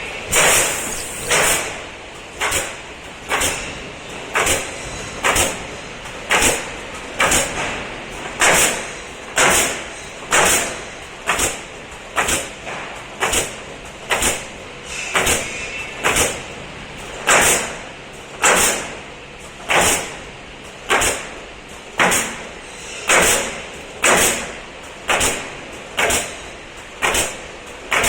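Pneumatic nailers of a CNC pallet nailing machine firing one after another, a sharp shot with a short hiss roughly once or twice a second, over a faint steady high whine.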